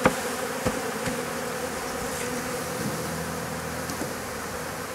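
Steady buzzing of a honeybee swarm of some 10,000 bees, freshly shaken into an open hive box, with a few light knocks in the first second or so.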